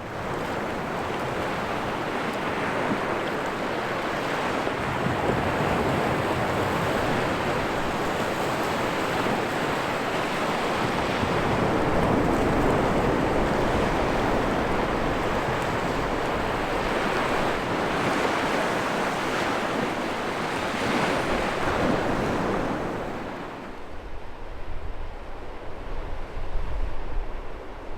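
Sea waves breaking and washing up a beach, a continuous rush that swells and ebbs. About 23 seconds in the surf dies down, and gusts of wind buffet the microphone in uneven low rumbles.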